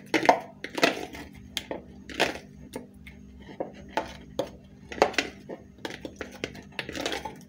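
A metal spoon stirring and scraping around a plastic bowl, knocking irregularly against its sides, as boiled eggs are tossed in oil and curry powder.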